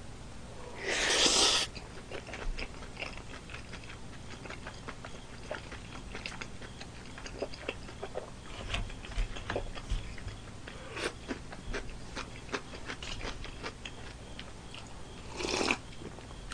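Close-miked chewing of a mouthful of saucy chicken: a short noisy burst about a second in, then a long run of small wet chewing clicks. Near the end comes a brief slurping sip of dongchimi, cold radish-water kimchi, from a cup.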